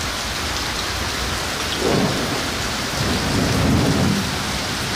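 Heavy rain pouring down steadily, with low rumbles of thunder swelling about two seconds in and again around three to four seconds in.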